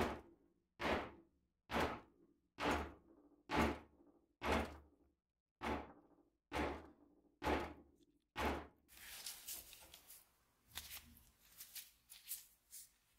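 The end of a wooden axe handle struck down hard on a wooden board again and again, driving the handle up into the axe head to seat it: ten sharp knocks about a second apart, each ringing briefly. After about nine seconds the knocking stops and there is quieter, irregular crinkling and clicking as gloved hands handle a thin wooden wedge.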